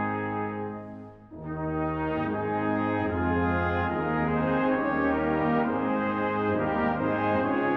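Brass ensemble playing slow, sustained chords, with a brief break about a second in before the next phrase begins.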